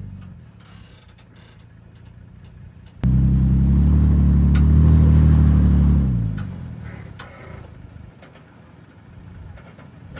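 Off-road vehicle engine running low, then about three seconds in it abruptly gets much louder under throttle. It holds for about three seconds before easing back down to a low rumble.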